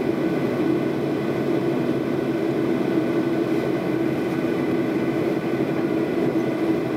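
Steady cabin drone inside a stationary Boeing 737-800, a constant low hum with no rise or fall.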